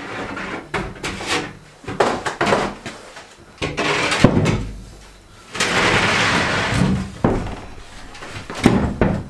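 A large sheet of plywood being carried and stood on edge. It makes a series of knocks and thumps as the board bumps and is set down, the sharpest a little after four seconds in, and a longer scraping sound about six seconds in.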